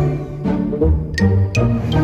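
Background music: plucked and bowed low strings with a bouncy bass line and sharp percussive accents.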